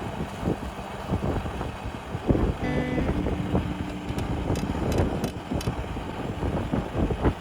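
Strong wind buffeting the microphone, a heavy gusting rumble that rises and falls.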